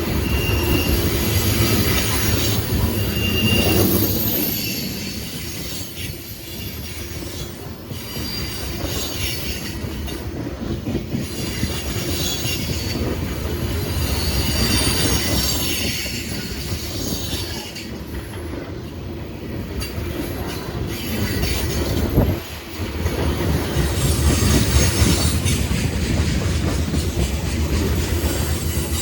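Freight train cars rolling past on steel wheels, with a steady low rumble and clatter and high-pitched wheel squeal coming and going. One sharp bang stands out about 22 seconds in.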